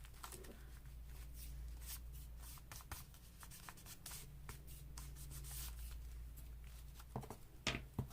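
Faint rubbing and rustling of paper being handled and smoothed by hand, with a few light taps or clicks near the end, over a steady low hum.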